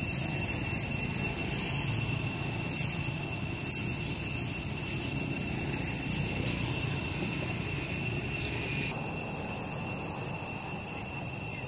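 Outdoor forest ambience: a steady low rumble under a steady, high, multi-pitched insect drone, with a couple of short clicks about three to four seconds in. One of the high insect tones cuts off about nine seconds in.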